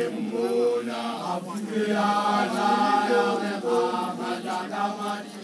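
A group of men chanting together in long, held notes over a steady low drone.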